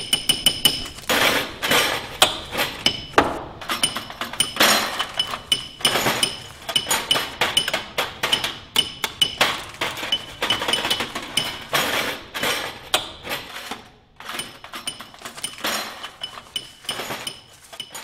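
Rapid, irregular clanks, knocks and clinks of metal stage poles, stands and props being taken down and packed away, with a faint steady high tone underneath.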